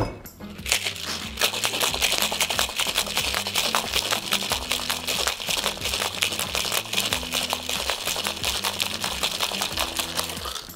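A knock as the two stainless steel tins of a cocktail shaker are sealed together. Then ice rattles hard and fast inside the shaker for about ten seconds: the wet shake on ice of an egg-and-cream cocktail.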